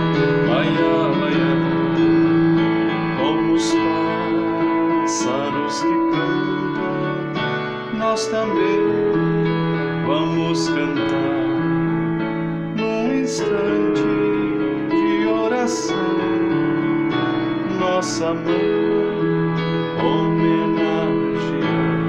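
Electronic keyboard playing a slow hymn: held chords under a melody line, with a light accent every few seconds.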